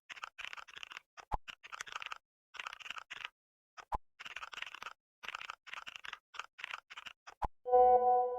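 Keyboard typing sound effect: runs of rapid clicks lasting about a second each, with short pauses between runs and three single sharp pops. Music with held tones comes in near the end.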